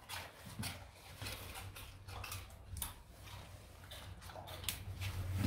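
Rottweilers and a puppy chewing hand-fed treats: an irregular string of short, sharp crunching clicks.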